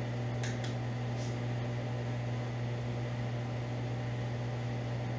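Steady low hum of a running machine or mains hum, constant throughout, with a couple of faint light clicks in the first second and a half.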